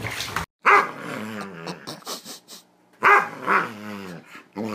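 Dog growling and grumbling in play, in long drawn-out growls that slide up and down in pitch, coming in bouts with short pauses.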